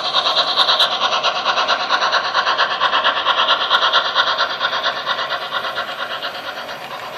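Bachmann mogul (2-6-0) model steam locomotive's built-in sound unit playing a rapid, even run of steam chuffs through its small speaker as the model runs, getting somewhat quieter near the end.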